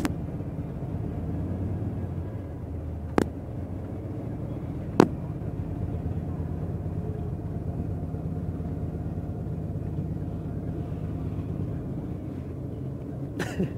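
Steady low drone of a vehicle engine running, heard from inside a vehicle, with two sharp clicks about three and five seconds in.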